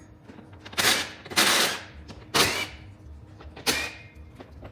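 Four short bursts from a power tool, most likely an impact driver, zipping out 10mm under-tray fasteners. The second burst runs longest.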